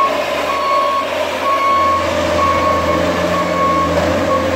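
Bobcat compact track loader's backup alarm beeping about once a second as the machine reverses, with its diesel engine running underneath.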